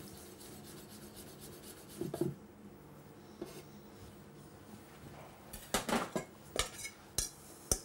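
Chef's knife chopping fresh coriander on a wooden cutting board with light, quick taps. Near the end come a few sharper clinks and knocks of utensils and dishes.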